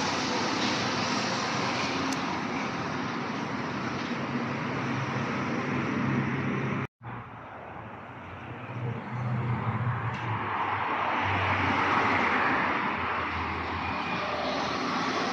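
A Mexico City Metro NM-73BF rubber-tyred metro train runs along the platform with a steady rumble and hiss, which cuts out abruptly about seven seconds in. A second train of the same type then approaches and pulls into the station, growing louder over several seconds.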